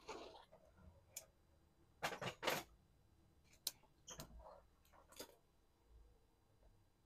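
Bonsai scissors snipping at a small wired tree: a few short, sharp clicks, the loudest a quick cluster of snips about two seconds in.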